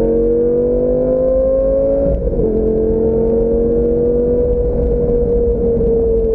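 Sports car engine pulling under acceleration, its pitch climbing slowly. About two seconds in it breaks briefly and steps down in pitch as it shifts up a gear, then runs on steadily. Wind rumbles in the open-top cabin underneath.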